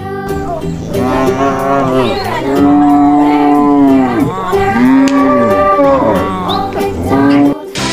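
Cow mooing several times, long calls that rise and fall in pitch.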